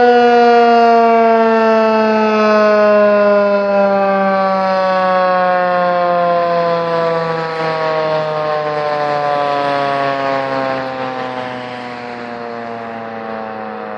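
Outdoor tornado warning siren winding down at the end of its monthly test, its pitch and volume slowly falling.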